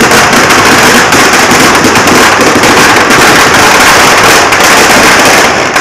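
Firecrackers packed inside a burning Dussehra effigy going off in a very loud, dense, continuous crackle of overlapping cracks.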